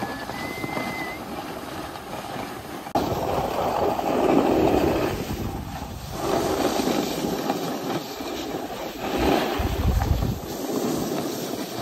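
Skis sliding and scraping over groomed snow during a run, with wind rushing over the microphone; the noise swells and eases in waves.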